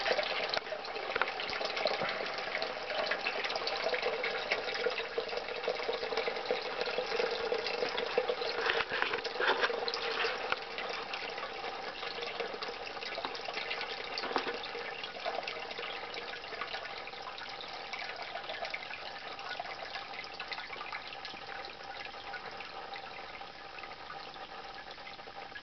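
Water running and splashing in a basement sump pit, a steady rush that slowly grows quieter.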